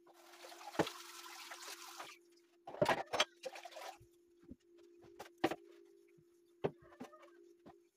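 Tap water running for about two seconds, then a quick run of clinks and knocks like dishes being handled, with a few more single clicks. A steady low hum sits under it throughout.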